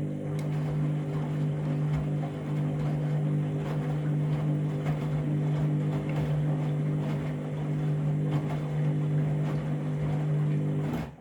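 Candy washing machine running its final rinse with bedding inside: a steady motor hum with water sloshing and small knocks over it, stopping abruptly near the end.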